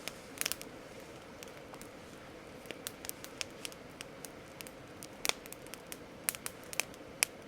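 Campfire crackling: irregular sharp pops and snaps of burning wood, with a few louder pops in the second half.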